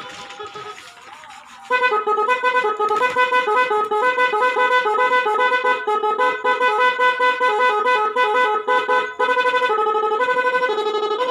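Twin snail-type multi-tone electronic horn playing one of its 22 built-in tunes, a fast melody of stepping notes. It comes in loud about one and a half seconds in, with a short break just after nine seconds.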